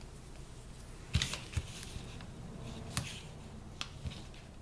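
Double-sided tear tape being applied to a cardstock box's glue tab: faint paper rustling with several light clicks and taps, the sharpest about a second in and about three seconds in.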